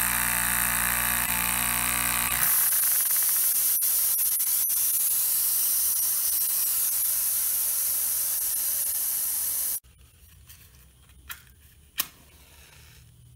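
Loud, steady hissing from a miniature brass steam boiler setup whose soft-soldered joints have given way under heat; it cuts off suddenly. Then a lighter clicks twice in a quiet room.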